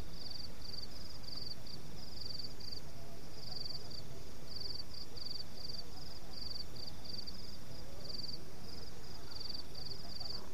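Crickets chirping in short, rapid pulsed trills, one after another, over a low, steady rumble of background noise.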